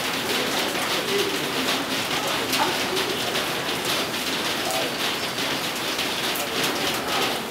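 Steady patter of rain falling, an even hiss with many fine drop ticks, with faint short tones now and then.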